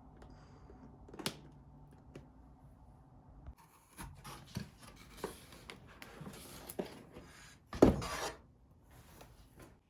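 Small handling noises: scattered clicks and short rustles of objects being moved, with a louder rustle about eight seconds in.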